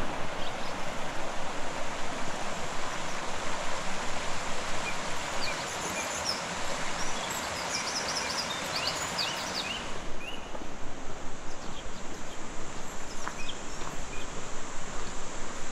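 Shallow mountain stream running over rocks, a steady rush of water, with a few birds chirping about halfway through.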